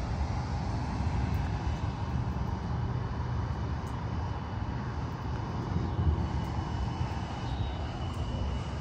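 A low, steady rumble that swells briefly about six seconds in.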